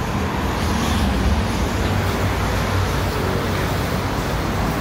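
Steady city road traffic noise: a low, even rumble.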